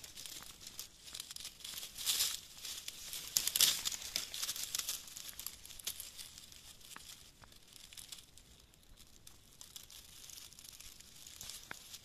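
Dry needle litter and twigs rustling and crackling under fingers as a morel mushroom is worked loose from the forest floor, loudest about two and four seconds in, then quieter.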